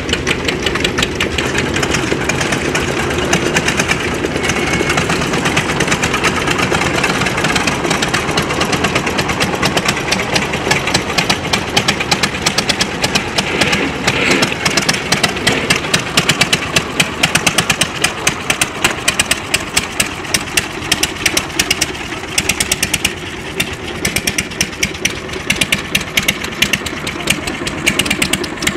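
Several vintage Svoboda tractors' diesel engines chugging with rapid, even exhaust beats as the tractors drive past one after another. The beats are loudest as one tractor passes close, about halfway through.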